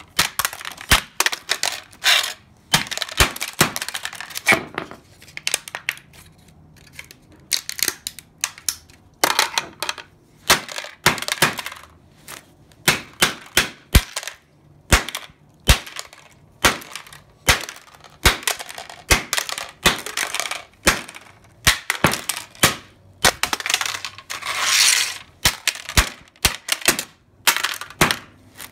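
A hammer repeatedly smashing an aluminium drink can on a concrete floor: dozens of sharp metallic bangs at an uneven pace, with the crunch and crinkle of the flattened can between blows.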